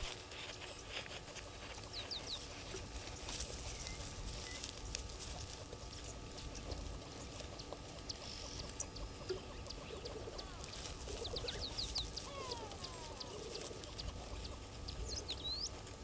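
Small birds calling: short, high, downward-sweeping chirps in little clusters, about three seconds in, again after ten seconds and near the end, with a few lower gliding notes in between.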